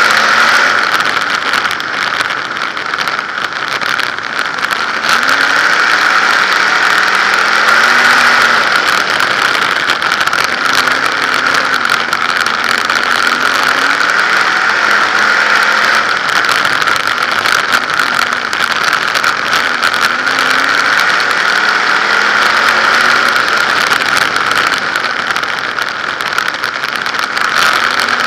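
A 360 sprint car's V8 engine running at racing speed, heard from an onboard camera on the car. Its pitch rises and falls again every few seconds, with a steady rushing and rattling over it.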